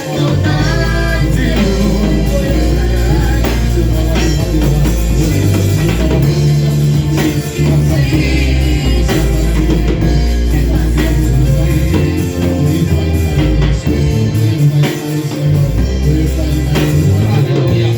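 Gospel worship music: singing over a band, with a steady bass line and drums.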